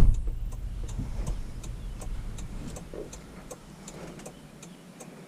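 Vehicle's indicator flasher clicking steadily, about three clicks a second, over a low rumble of the vehicle that fades away over the first few seconds.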